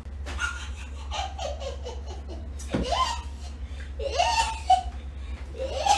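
People laughing in several separate outbursts, with high, swooping pitch, over a low steady hum.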